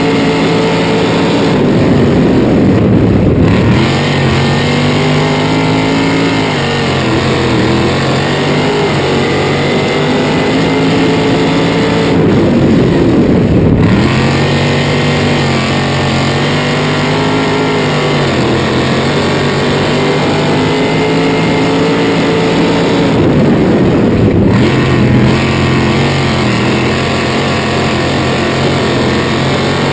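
A 305 sprint car's V8 engine at racing speed, heard from the cockpit. Its pitch holds steady down each straight and drops, then climbs again, about every ten seconds as the car lifts off and drives through each end of the dirt oval.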